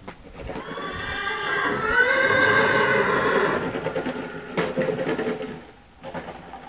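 Arabian mare neighing: one long call of about four seconds that swells and then fades, followed by a second, shorter call about four and a half seconds in.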